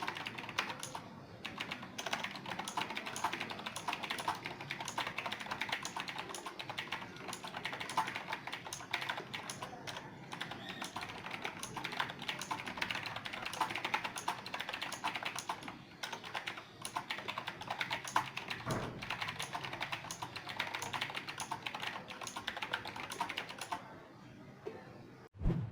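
Fast, continuous typing on an Azio MK-Retro mechanical keyboard with round typewriter-style keycaps, the key clicks coming thick and steady. The typing stops shortly before the end, followed by a single thump.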